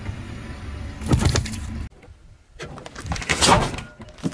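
A car tyre crushing objects on pavement. Over a low engine rumble there is a short crushing burst about a second in as the tyre goes over juice cartons. After a cut comes a second, louder crushing noise that peaks about three and a half seconds in as a tyre presses onto another object.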